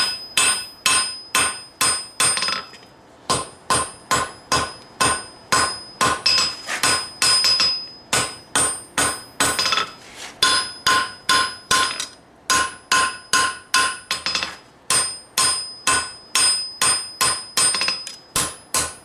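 Hand hammer striking hot steel on an anvil, about three blows a second in runs with brief pauses, each blow ringing. The smith is drawing out the tang of a knife blade.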